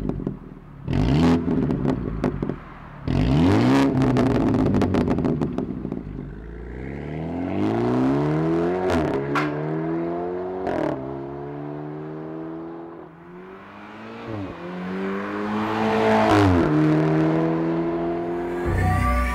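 BMW 428i's turbocharged four-cylinder through an aftermarket RES valved exhaust: two sharp rev blips with crackling pops in the first few seconds, then a hard acceleration, the engine note climbing and dropping back at each of four upshifts.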